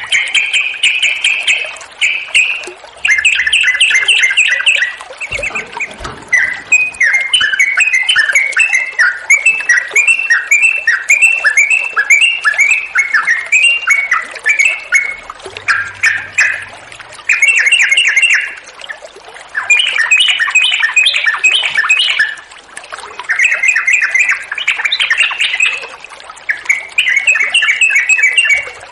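Yellow-vented bulbul (trucukan) singing, phrase after rapid bubbling phrase with only short pauses between them.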